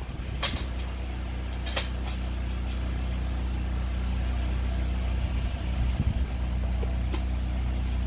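Stick welding machine running with a steady low hum. A few light metal clinks in the first three seconds as the steel rod and spring handle are handled on the steel grate.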